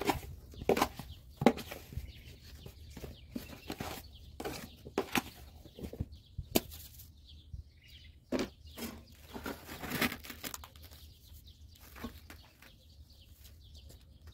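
Pita bread dough being handled on a table covered with plastic sheeting: the plastic rustles and crinkles, with irregular sharp taps and pats, busiest in the first half and again a little past the middle.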